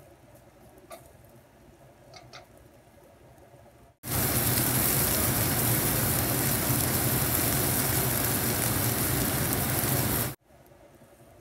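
A few faint clicks of a spatula in a wok. Then, about four seconds in, a loud steady sizzling and bubbling of golden chanterelle mushrooms frying in oil and a little water in the wok, which cuts off abruptly about a second before the end.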